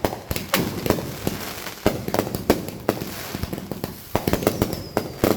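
Fireworks going off: a rapid, irregular string of sharp bangs and pops, several a second, with a faint falling whistle near the end.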